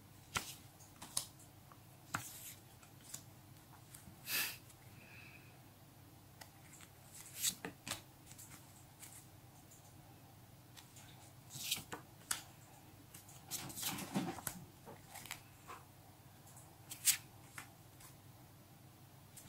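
Paper stickers slid one by one off a stack held in the hands: soft, irregular flicks and rustles of paper, with a few sharper clicks and a longer rustle a little past halfway.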